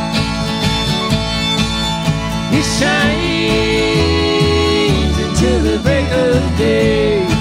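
Acoustic string band playing a country song: fiddle carrying long held, wavering notes over strummed acoustic guitars and upright bass.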